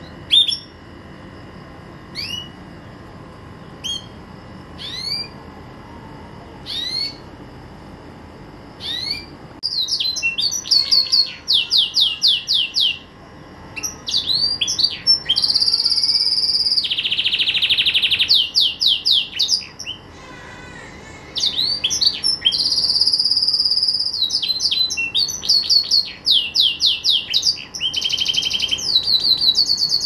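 Green domestic canary singing. It first gives single rising chirps about once a second, then, from about ten seconds in, breaks into full song: fast trills and long rolls of rapidly repeated notes, with a buzzy rattle partway through.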